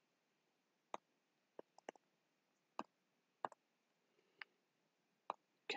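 Faint, scattered clicks of a stylus tip tapping and lifting on a tablet screen during handwriting, about nine short ticks at uneven intervals over a near-silent room.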